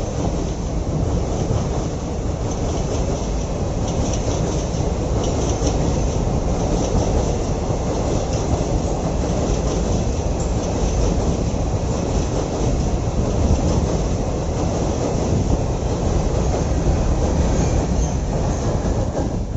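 Train of Indian Railways parcel vans rolling past at speed: a steady, loud rumble of steel wheels on the rails, with a few clicks of wheels over rail joints about four to six seconds in.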